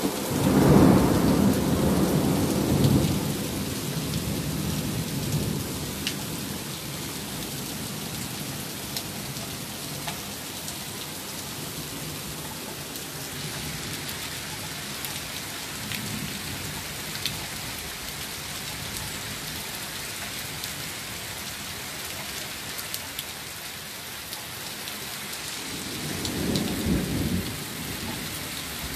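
Steady pouring rain with two rolls of thunder: a loud rumble starting right away and dying out over about five seconds, and a shorter, weaker rumble near the end.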